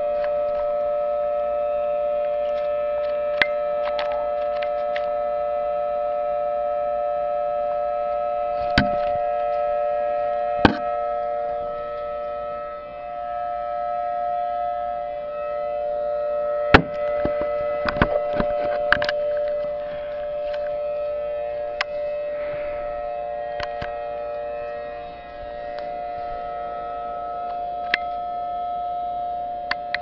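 Recording of a Federal Signal Thunderbolt civil defense siren played through a laptop's speakers, holding a steady pitch made of several tones at once and slowly swelling and fading in level. Sharp clicks come and go throughout.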